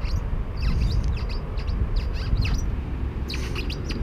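Birds chirping: short, high, falling notes repeated in little clusters, over a steady low rumble.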